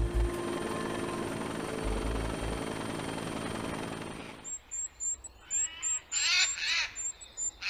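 Helicopter running overhead, a steady rotor and engine sound that stops abruptly about four seconds in. Then birds call: a short high peep repeated about three times a second, with a few louder calls near the end.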